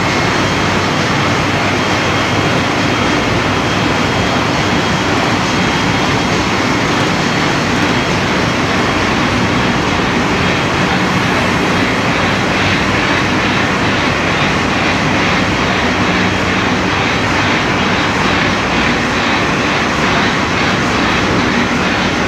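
Ship's engine-room machinery running: a loud, steady drone and hiss with a faint constant hum in it.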